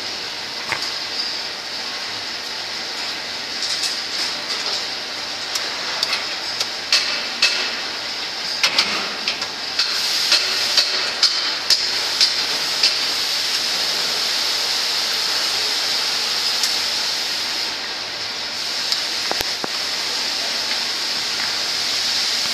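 Foundry work noise by a tilting crucible furnace: a steady hiss with many sharp metallic clicks and knocks, thickest in the first half.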